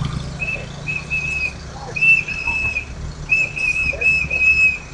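A hand whistle blown again and again at one high pitch: a few short blasts, then longer ones, with a quick run of four blasts near the end.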